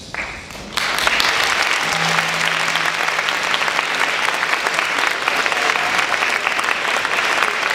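Theatre audience applauding, breaking out suddenly about a second in and going on steadily.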